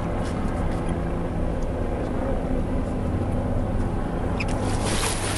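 Boat engine running steadily at low speed, a constant low hum. A brief rush of hiss comes near the end.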